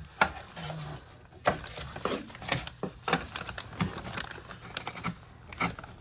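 Irregular clicks and knocks with plastic rustling as a plastic coil-cleaning bag and its straps are fitted around a wall-mounted mini-split indoor unit.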